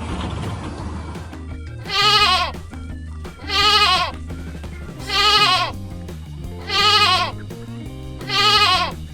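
Five bleats from a goat-like farm animal, evenly spaced about one and a half seconds apart, each wavering and dropping in pitch at the end, over steady background music.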